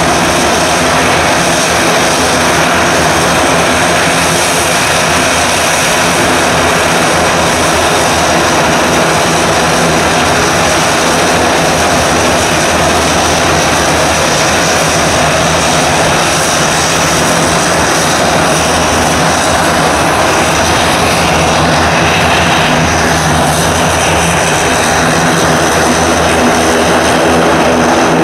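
Dornier 328 twin turboprop engines running at taxi power: a steady, loud propeller drone with a high turbine whine, growing slightly louder near the end.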